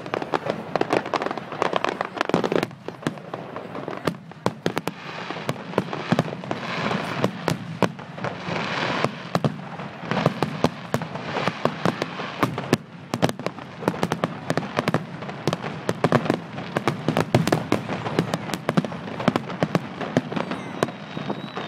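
Fireworks display: a dense, unbroken run of bangs and crackling reports.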